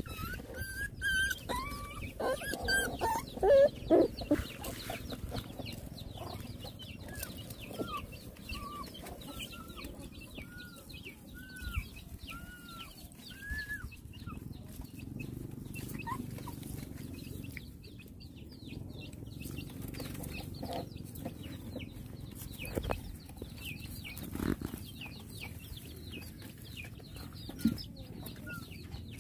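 Animal calls, louder and bunched together in the first few seconds. In the middle comes a run of short rising-then-falling calls, a little more than one a second, with fainter chirps throughout.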